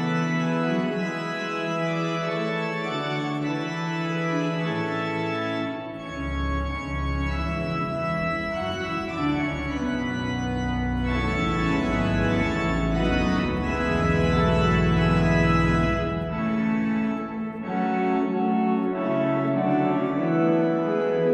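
Sampled cathedral pipe organ (Hauptwerk virtual pipe organ using Salisbury and Hereford Cathedral samples) playing sustained full chords. Deep pedal bass notes come in about six seconds in and drop out around sixteen seconds.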